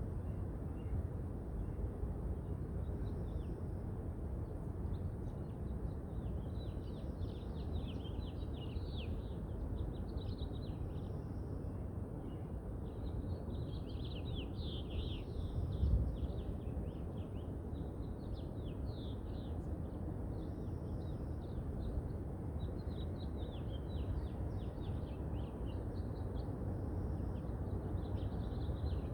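Birds chirping in quick bursts over a steady low rumble of wind and distant city noise, with a brief low thump about halfway through.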